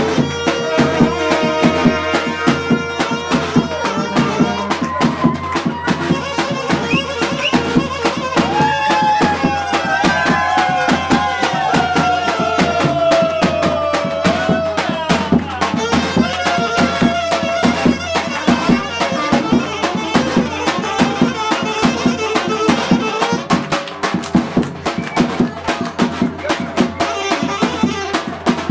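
Balkan wedding brass band playing fast dance music: trumpets and saxophone carry a melody with sliding, ornamented lines over a steady, driving drum beat.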